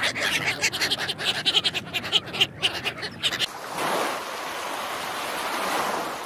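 White domestic ducks quacking and chattering in quick, irregular calls for about three and a half seconds. The sound then cuts to a steady rush of shallow surf washing over wet sand.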